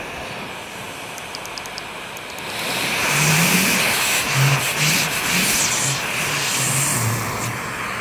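Vorwerk Kobold vacuum cleaner running. Its suction noise grows louder about two and a half seconds in, with a run of short low pulses as the hose nozzle is worked, then eases slightly near the end.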